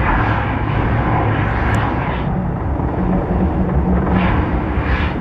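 Loud, steady rumble of The Mirage volcano show, with several brief surges of hiss as its gas fire jets erupt.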